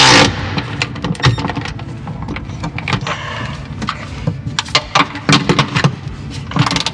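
Scattered sharp metal clinks and knocks of bolts and hand tools being handled, over background music.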